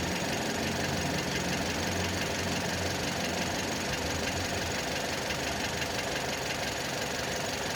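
Skoda Octavia A7's 1.6 CWVA four-cylinder petrol engine running with a fast, even knock coming from under the hood.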